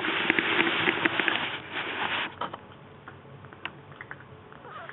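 Maine Coon kittens eating cat food from stainless steel bowls: close chewing and licking with many small clicks. It is loudest for the first two seconds, then turns fainter and sparser.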